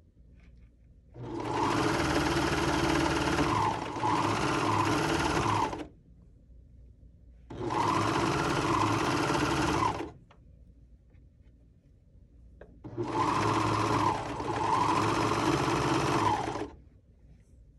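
Air-threading serger stitching a 4-thread overlock seam, run in three bursts of a few seconds each: the first starts about a second in, the second about halfway, the last near the end. The first and last each dip briefly midway before carrying on.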